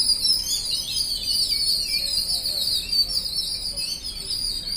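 A flock of house sparrows chirping together in a dense, continuous chatter.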